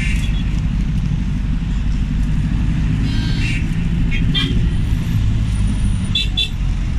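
Dense city traffic heard from a moving vehicle: a steady low engine rumble, with several short horn toots around the middle and near the end.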